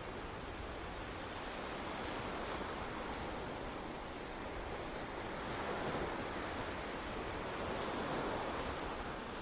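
Sea waves washing in steadily, swelling slightly about two, six and eight seconds in.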